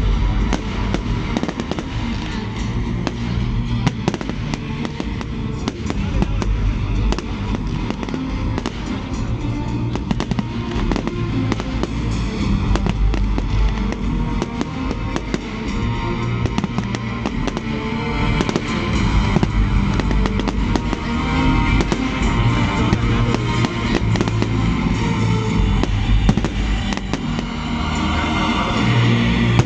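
Fireworks display: rapid, continuous bangs and crackling bursts over loud music.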